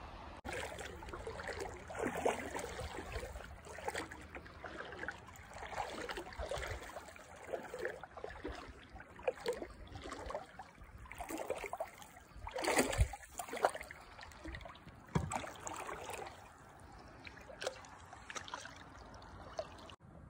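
Water lapping and trickling in a hot spring pool, in irregular small splashes, with the loudest splashing about 13 seconds in.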